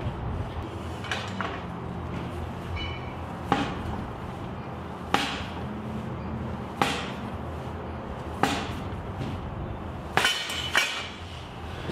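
Steel car-deadlift frame clanking each time it comes down at the bottom of a rep, as a lifter pulls repetitions with a pickup truck on the lever: sharp clanks about every second and a half, the last two in quick succession near the end.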